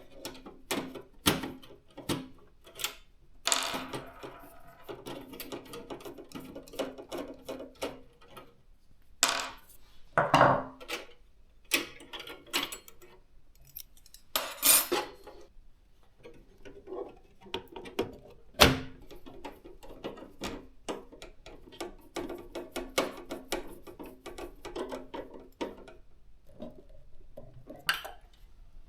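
Hands working on a desktop PC build: a steady run of small clicks, taps and light metal and plastic rattles, with a few louder knocks.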